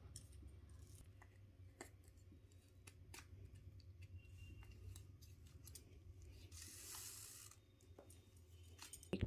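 Faint handling sounds of silk thread being wound and knotted by hand: small ticks and a soft rustle. Near the end comes a short sharp snip as the thread is cut with scissors.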